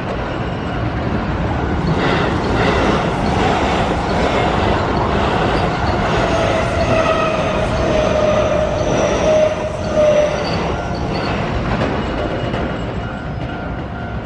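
Keio Line train passing over a level crossing, rumbling loudest through the middle. A thin high wheel squeal falls slightly in pitch midway through the pass. The crossing's warning bell keeps sounding underneath.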